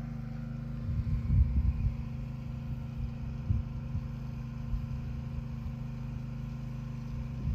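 A steady low mechanical hum, like an engine running at idle, holding the same pitch throughout. Irregular low rumbling thumps come about one to two seconds in, with a few single low knocks later.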